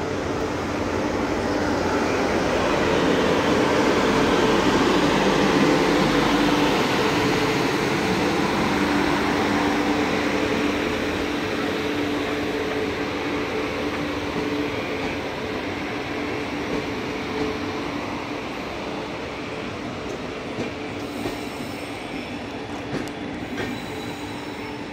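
12693 Pearl City Express, a passenger train, rolling into the station platform. The rumble is loudest a few seconds in and then eases off, with a steady tone running through much of it and clicking from the wheels near the end.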